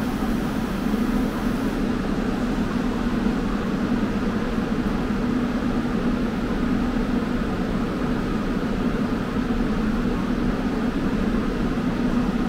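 Steady rumble of a subway train on the platform, with a constant low hum and no change in level.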